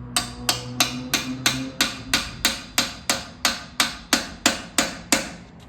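Hammer striking a steel screwdriver used as a makeshift punch, about three evenly paced blows a second, each with a short metallic ring, driving a part into place in a Sterling 10.5 rear axle during a regear. The blows stop shortly before the end.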